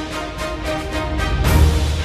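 Background music: sustained chords over a deep low beat, with a strong low hit about one and a half seconds in.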